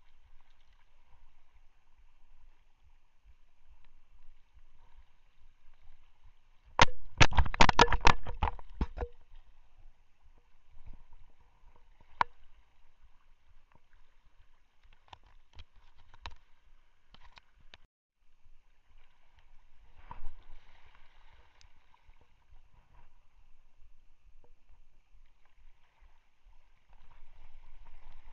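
Quiet water-and-wind ambience on a small fishing boat. About seven seconds in, a two-second burst of rapid, loud, irregular knocks and clatter breaks it, and a few single clicks follow later.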